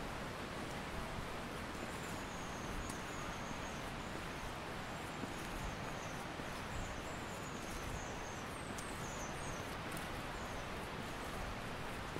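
Steady, even rushing woodland background, with a small bird giving a string of short, thin, very high-pitched calls from about two seconds in until near the end.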